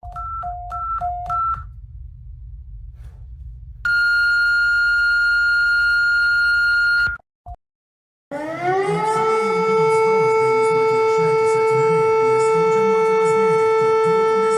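A run of emergency alert sounds: three quick beeps alternating between two pitches, a low hum, then a steady single-pitch alert tone for about three seconds. After a short break, a siren winds up in pitch and holds a steady wail.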